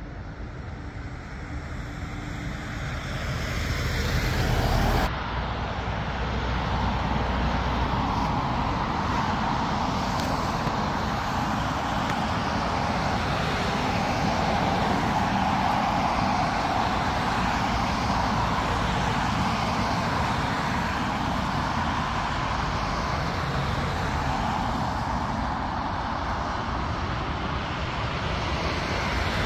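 Jet airliner engines. The sound grows louder, with a faint falling whine, over the first five seconds, then changes abruptly to a steady jet rumble that holds to the end.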